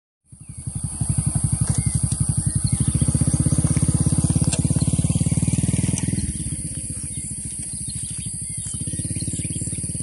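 A small engine running close by, a fast, even low throb that eases off about six seconds in, with a steady high hiss over it.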